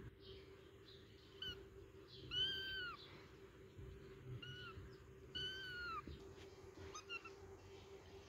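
Cat meowing five times in high-pitched, rising-and-falling calls: two longer meows and three short ones.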